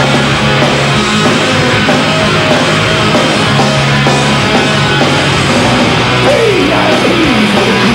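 Rock band playing live: electric guitars, bass and drums in a loud, dense punk-tinged hard rock song, with a note sliding down in pitch twice near the end.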